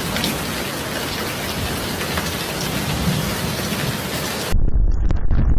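Heavy rain pouring down in a dense, steady hiss. About four and a half seconds in it cuts abruptly to a louder, low rumble of strong wind buffeting the microphone.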